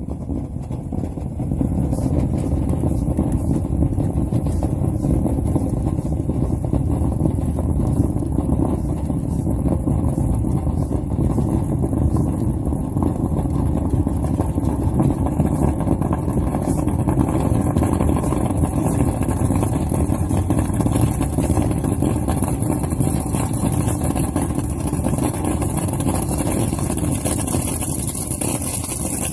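A motor running steadily without pause, a low rumble with a hiss on top.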